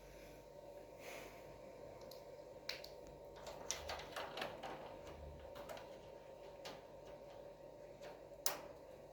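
Light clicks and taps of an African grey parrot moving about its cage, a quick run of them in the middle and one sharp click near the end, over a faint steady hum.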